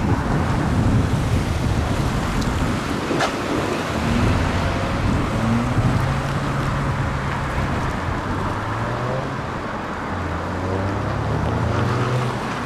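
Road traffic passing on a multi-lane boulevard: car engines and tyre noise, with wind buffeting the microphone. Low engine notes rise in pitch a few times as cars pull away, most clearly a few seconds in and near the end.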